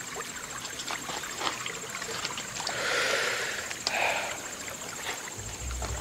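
Spring water trickling from a garden well, spilling over its stone rim onto wet pebbles, with two brief louder rushes of noise about three and four seconds in.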